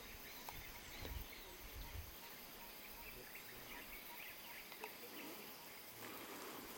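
Faint tropical forest ambience: a steady high hum of insects with a few soft chirps, and a couple of soft low thumps about one and two seconds in.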